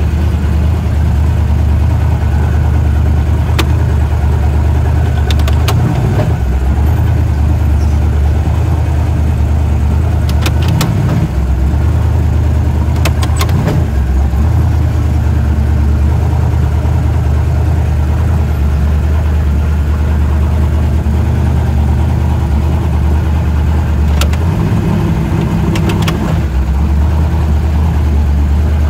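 Twin-turbo 515-cubic-inch big-block Chevy V8 in a 1963 Pontiac running loud and steady at low revs, heard from inside the cabin. Its note shifts briefly a few times, and several sharp clicks sound over it.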